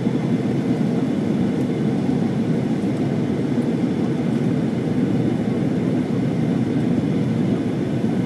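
Jet airliner cabin noise: the steady, even low rumble of the engines and airflow heard from inside the cabin during the descent to land.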